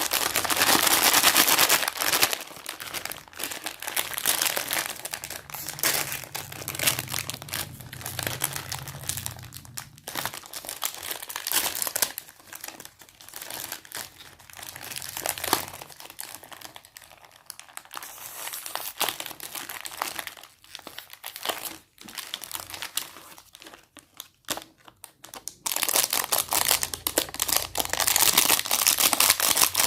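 Plastic cake wrapper crinkling as it is handled and opened by hand, in irregular stop-and-start crackles. It is loudest in the first two seconds and again over the last four, with quieter crackling in between.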